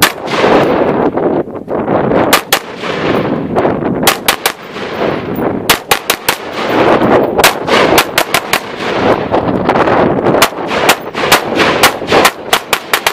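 AR-15 rifle fired in quick strings of shots, dozens in all, starting about two seconds in, with wind rushing on the microphone between the strings.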